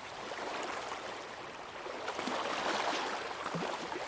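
Shallow seawater at low tide lapping and washing with small splashes, swelling again about halfway through.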